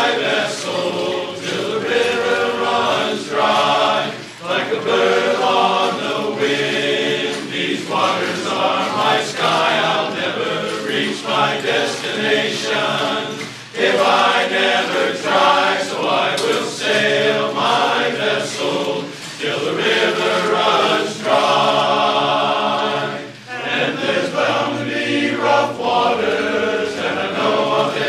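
A men's chorus singing in harmony, in long sung phrases with short pauses for breath every several seconds.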